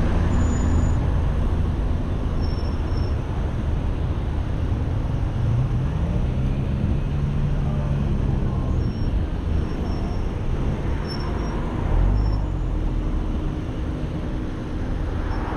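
Road traffic noise: a steady low rumble. About five seconds in, a passing vehicle's engine rises and then falls in pitch.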